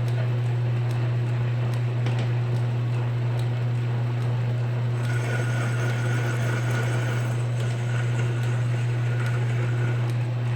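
Metal lathe running with a steady low motor hum and a faint, evenly spaced ticking. About halfway through, a thin high whine joins in for roughly five seconds as the tool takes a thread-cutting pass in the metal, then fades out.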